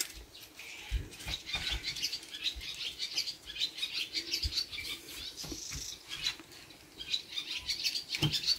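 Small birds chirping in quick, scattered high calls, with a few soft low thumps mixed in.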